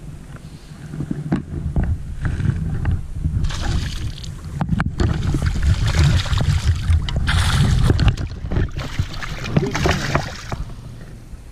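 A hooked bass thrashing and splashing at the water's surface beside the boat, in bursts that are loudest midway and again near the end, over a steady low rumble.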